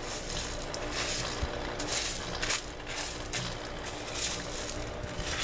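Expanded clay pebbles clinking and crunching against each other as hands dig through an aquaponic grow bed, in several irregular short bursts.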